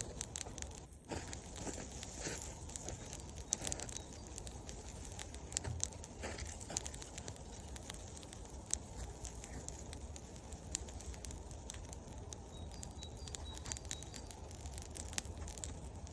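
Birch-wood campfire crackling, with irregular sharp snaps and pops.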